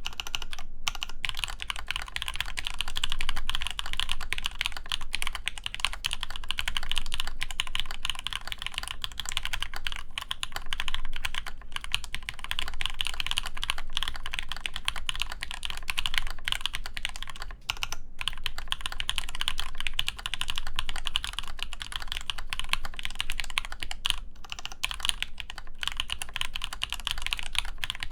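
Fast, continuous typing on a custom mechanical keyboard: an AEBoards Praxis IM with an injection-molded ABS case, full aluminum plate, GMK keycaps and Zepsody Blue Bonnet switches lubed with Krytox 205g0. The keystrokes run close together, with a couple of brief pauses.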